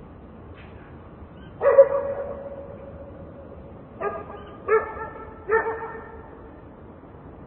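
A dog barking four times: one loud, drawn-out bark, then a pause and three shorter barks in quick succession, over a steady background hum of distant traffic.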